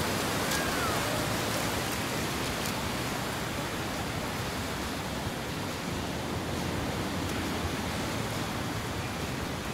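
Steady rushing noise of ocean surf breaking and washing up a wide beach.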